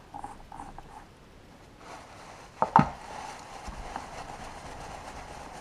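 Hands fitting the hydraulic accumulator onto a DQ200 DSG mechatronic unit: a few light clicks, then a sharp knock a little under three seconds in. A cloth rag rubs steadily over the unit from about two seconds on.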